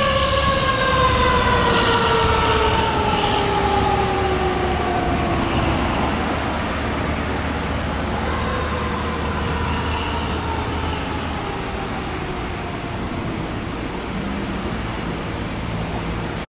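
Fire truck siren on a 2007 American LaFrance Eagle ladder truck wailing as the truck pulls away. The pitch slides slowly down, rises again about six seconds in, then falls away. Under it is the low, steady rumble of the truck's engine, which thins out near the end.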